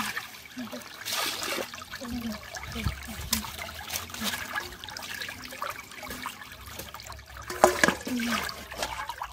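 Shallow stream water trickling and splashing as a metal pan is dipped, rinsed and scrubbed in it by hand, with irregular splashes throughout and a louder one near the end.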